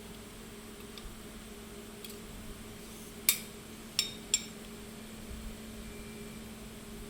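Mini CNC lathe humming steadily, with three sharp metallic clinks a little past the middle.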